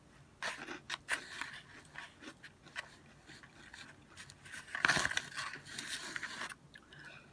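Eating salad: a plastic fork scraping and picking through lettuce on a plate, and crunchy chewing, heard as a string of small crunches and scrapes that is loudest about five seconds in.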